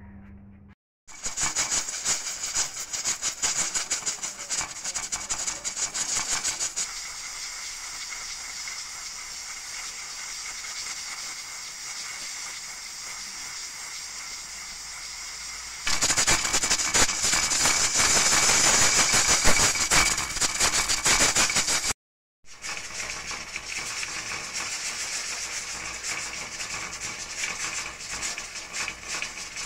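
Aluminium pressure cooker venting steam through its lid valve with a rough, fluttering hiss under pressure. The hiss is louder for the first few seconds, softer for a while, then loud again. It breaks off suddenly and comes back more softly.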